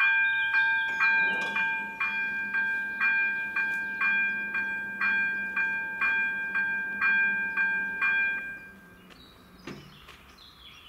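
Electric level-crossing warning bell of an AŽD 97 installation ringing at about two strikes a second, with a metallic ring, stopping about eight and a half seconds in. Under it, the barrier drive hums steadily as the arms lower, ending with a short clunk near the end as the booms come to rest.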